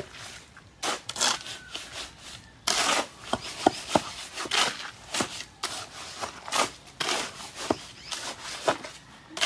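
Irregular scraping strokes, about a dozen short rough noises in a row, with a few sharp clicks among them.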